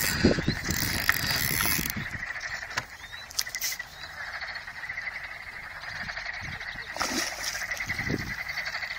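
Frogs calling in a steady, rapidly pulsing trill chorus, with low knocks and rumbles underneath.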